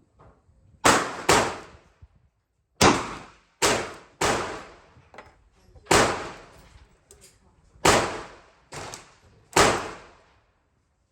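About nine gunshots, each a sharp crack with a short echoing tail, some coming in quick pairs about half a second apart.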